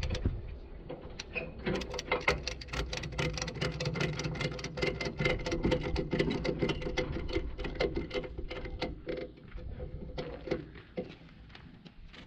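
Ratchet tie-down strap being cranked tight over a round hay bale, its pawl clicking rapidly over the gear teeth. The clicking thins out about ten seconds in.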